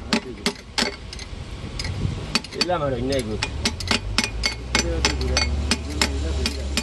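Hammer striking a steel punch against a truck differential's crown wheel carrier, sharp metal taps about three a second. A short voice comes in near the middle.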